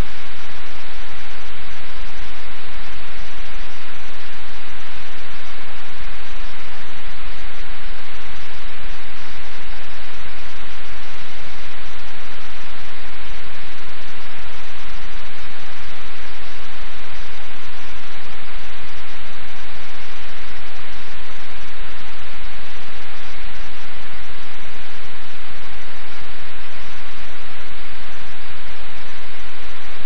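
Loud, steady hiss of static, even and unchanging throughout, with no engine, rotor or voice heard through it.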